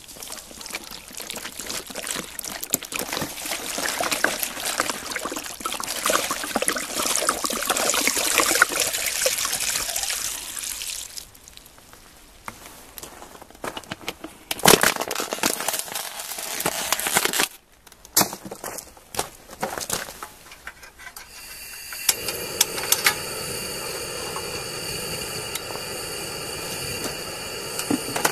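Water pouring from a plastic bottle into a pot of bean sprouts and fish, splashing onto the ingredients. There is one long pour of about ten seconds and a shorter one a few seconds later. A steady even hiss takes over near the end.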